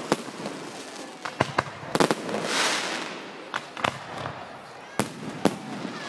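Fireworks display: about a dozen sharp bangs of shells launching and bursting at irregular intervals, with a hissing rush about halfway through.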